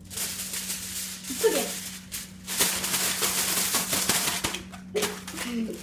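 Aluminium foil being crushed and squeezed by hand into a ball, a dense crinkling crackle. It runs in two long stretches with a short break about two and a half seconds in.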